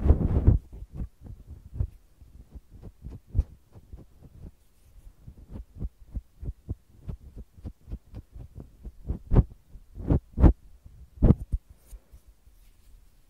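A fluffy puff on a wooden stick brushes and pats the microphone capsules, making a run of soft, irregular low thumps and rustles. A few louder thumps come about ten seconds in, and it is quieter near the end.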